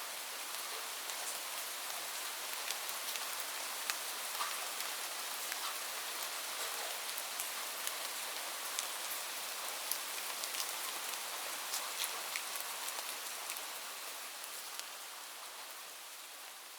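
Light rain falling, a steady hiss with many scattered sharp drop ticks on a hard surface. It begins to fade out gradually over the last few seconds.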